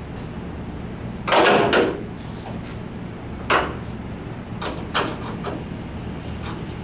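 Metal parts of a VW Beetle door being handled during teardown: a short scraping rattle about a second in, then several sharp clicks and knocks.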